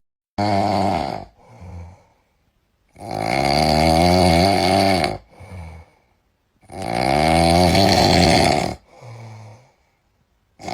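An animal snoring: three long, loud snores with a wavering pitch, each followed by a shorter, softer breath.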